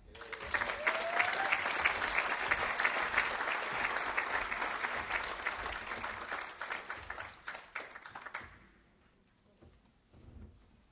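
Audience applauding steadily for about eight seconds, then dying away.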